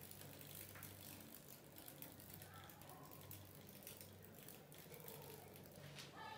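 Near silence: faint room tone with a low steady hum and a few small scattered ticks.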